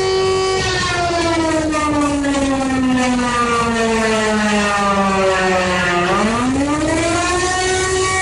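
Civil defense siren sounding a steady tone that begins about half a second in to sink slowly in pitch for some five seconds, then swings quickly back up to the steady tone about six seconds in.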